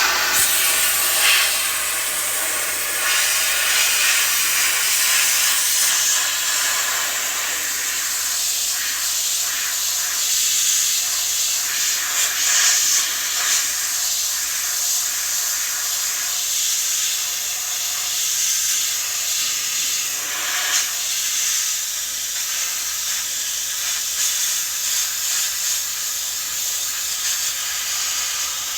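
Sandblaster nozzle blasting abrasive with compressed air against a car body tub: a loud, steady hiss that swells a little now and then.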